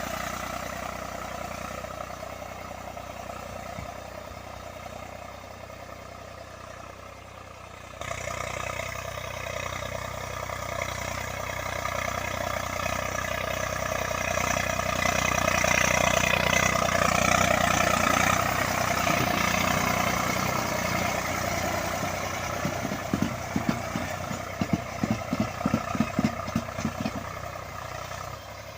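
Eicher 485 tractor's three-cylinder diesel engine running steadily under load. It jumps louder about a quarter of the way through and swells louder again around the middle. Near the end a run of irregular clattering knocks sounds over the engine.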